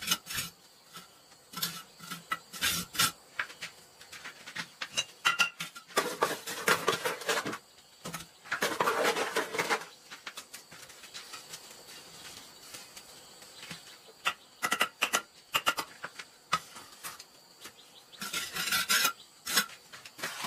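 Mason's trowel working cement mortar on hollow clay bricks: sharp clicks and taps as bricks are knocked into place, with two longer scrapes of the trowel through mortar near the middle.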